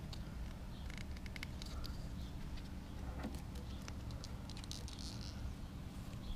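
Small clicks and rubbing of a rubber mounting sleeve being worked off a scooter's CDI box by hand, in two bursts about a second in and again about four seconds in, over a low steady hum.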